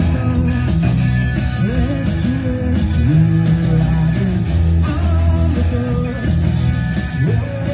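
Live rock band playing: electric guitars, bass guitar and a drum kit through a PA.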